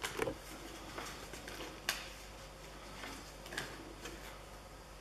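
Faint rustling and crinkling of a small folded paper leaflet from a Kinder Surprise egg being handled and unfolded, in a few short spurts with a sharper crackle about two seconds in.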